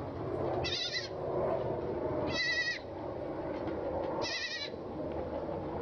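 An animal bleating three times, short high wavering calls about two seconds apart, over steady background noise.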